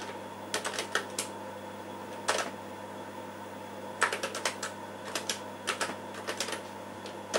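Keystrokes on a TRS-80 Model II keyboard, typed in short bursts with pauses between as a CP/M command is entered.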